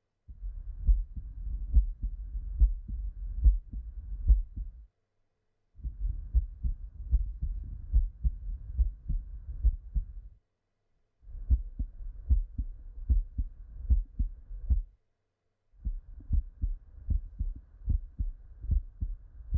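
Heart sounds heard through a stethoscope: a steady lub-dub of low thumps at about seventy beats a minute. They come in four stretches of about four and a half seconds, separated by short silent breaks.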